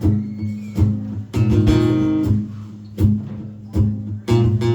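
Acoustic guitar strummed and picked as the intro to a song, chords struck every second or so and left to ring.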